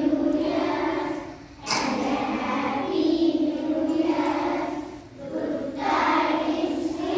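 A group of children singing together in chorus. They sing in sustained phrases, with short breaks about a second and a half in and again about five seconds in.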